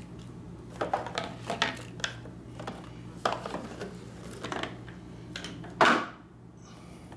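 Knives, a hard black sheath and cardboard knife boxes being handled and set down on a wooden tabletop. It is a run of light knocks and scuffs, with one louder knock a little under six seconds in.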